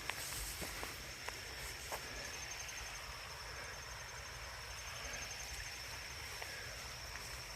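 Insects calling in woodland: a steady high-pitched trill throughout, joined by a second, pulsing high chirp from about two seconds in until past the middle. A few light footstep crunches come in the first two seconds.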